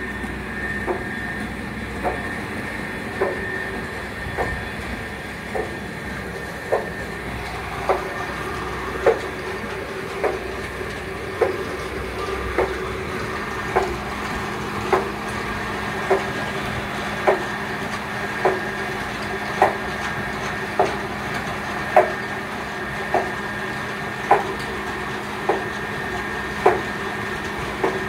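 Belt-driven paddy-field drainage pump (petti-and-para) powered by a large electric motor, running steadily with a hum and whine. A sharp knock repeats evenly, a little less than once a second.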